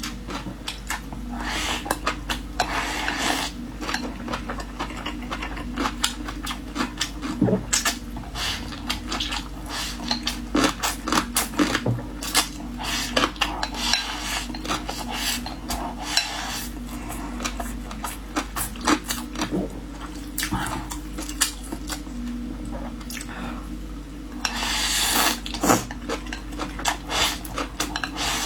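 Eating sounds: utensils clicking and scraping against a bowl many times in quick, irregular strokes, with a few longer rushes of noodle slurping, the loudest near the end, over a steady low hum.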